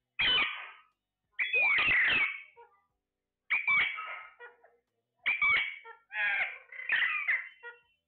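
Alexandrine parakeets calling: about five calls that glide up and down in pitch, with short gaps between them and the last two running together.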